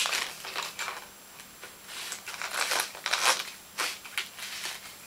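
Hard plastic parts of a toy lightsaber clicking, scraping and rattling in the hands as the red blade is fitted and turned in the hilt, in irregular bursts.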